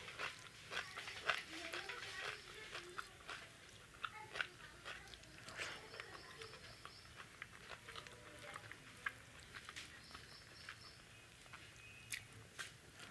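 Close-up eating sounds: a person chewing rice and dal with wet lip-smacks and small mouth clicks, and fingers mixing the food on a plate. Soft, irregular smacks and clicks, several a second.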